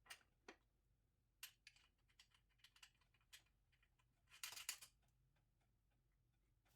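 Faint, scattered clicks and light taps of small bike hardware being handled and fitted, as the training wheels go on, with a short cluster of clicks about four and a half seconds in.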